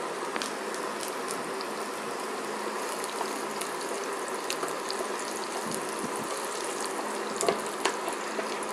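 Chopped ginger and garlic sizzling in hot oil in a kadhai, a steady frying hiss, with a few light knocks of a wooden spatula against the pan near the end.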